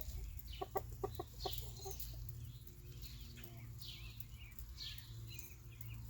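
Backyard chickens clucking: a quick run of short clucks in the first second and a half, with high, falling chirps repeating through the rest, over a low steady hum.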